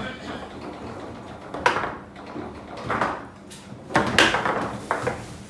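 Foosball table in play: the ball struck by the players on the rods. A handful of sharp knocks and clacks come at uneven intervals.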